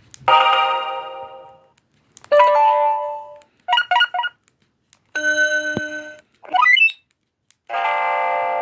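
A BlackBerry Curve 8520's ringtones and alert tones playing one after another in short snippets: a chime fading away, a second chime, three quick beeps, a steady electronic tone, a brief rising chirp and a held chord near the end.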